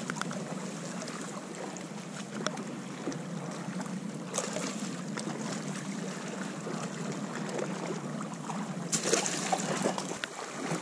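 Steady wash of the sea around rocks with wind noise, a continuous hiss, with a brief louder rush of water about nine seconds in.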